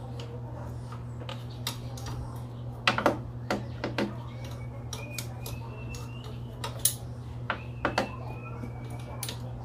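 Metal tools and parts clinking and knocking in a series of separate, irregular clicks, loudest in a cluster about three seconds in. A steady low hum runs underneath.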